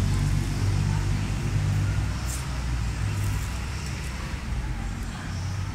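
A steady low engine hum, like a motor vehicle idling. A few faint high chirps come about two and three seconds in.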